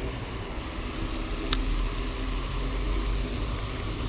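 Steady low rumble and hiss of wind and distant road traffic, with one sharp click about a second and a half in.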